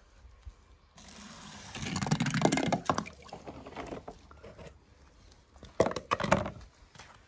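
Wet sloshing and squishing of water in two louder bouts, about two seconds in and again about six seconds in, with a few sharp clicks.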